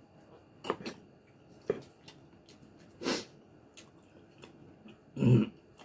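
Close-up mukbang eating sounds from a man eating pork: a few sharp wet clicks, a short sharp breath about three seconds in, and a brief throat-clearing grunt near the end.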